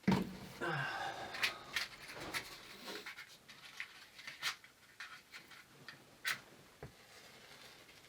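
Wood being worked down into small tinder and kindling: irregular sharp clicks and short scraping strokes, louder at the start, with a dull knock about seven seconds in.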